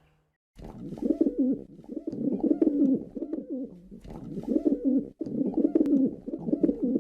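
A pigeon cooing: low, warbling coos repeated in phrase after phrase, starting about half a second in.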